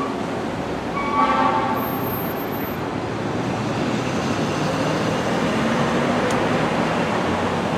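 Fire engine air horn sounding a short blast about a second in, over a steady rumble of engine and road noise.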